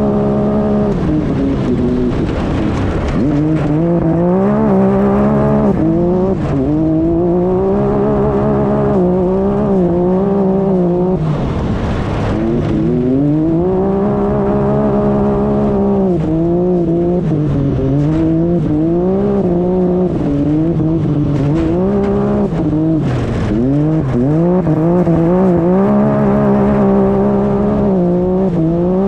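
Side-by-side UTV engine driven hard, heard from onboard: the engine note climbs and falls over and over with the throttle, dropping away sharply twice, about twelve and twenty-three seconds in, before winding back up.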